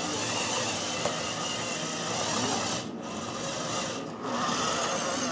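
1/14-scale RC Caterpillar D6H bulldozer's electric drive motors and gearboxes running with a whirring, rasping mechanical sound. The sound drops out briefly about three seconds in and again just after four seconds, as the machine stops and starts.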